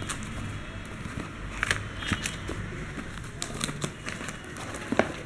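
Cardboard shipping box being opened by hand: rustling of cardboard and plastic wrapping with irregular sharp crackles.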